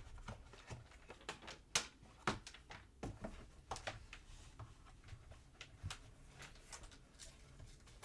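Scattered, irregular clicks and light knocks of a plastic protective case being handled and pressed onto an iPad Air 4, with a few louder clicks about two to three seconds in.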